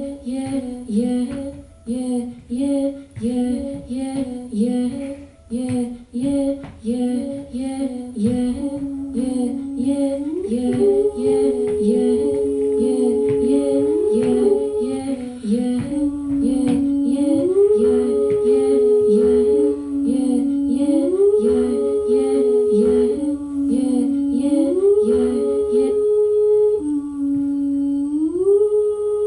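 Two voices singing without words: a short phrase repeated about twice a second, joined about ten seconds in by a held, hummed note that slides up and down between two pitches. Near the end the repeated phrase stops and only the held note carries on.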